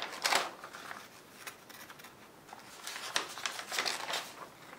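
Paper rustling as printed instruction sheets are handled and a page is turned over, in two bouts: a short one at the start and a longer one from about three seconds in.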